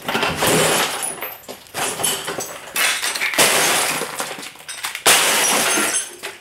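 Glass breaking and shattering as an old RCA console television is smashed apart, several crashes in a row with the loudest about five seconds in.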